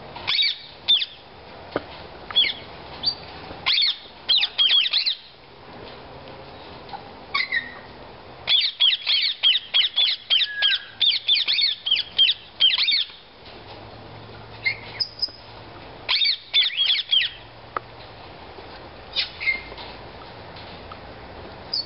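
A flock of rose-ringed parakeets calling in bouts of rapid, high-pitched squawks. The longest run of calls falls in the middle, with short quieter gaps between the bouts.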